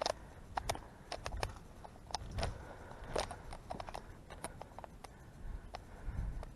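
Irregular clicks and knocks, with a few dull thumps: movement and handling noise, such as steps and gear knocking near the microphone.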